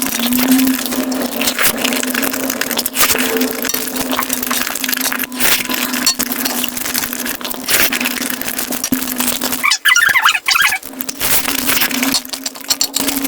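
Crunchy eating sounds: food being bitten and chewed, dense crackling and crunching, over a steady low hum. About ten seconds in, a brief different sound with higher pitched marks cuts in.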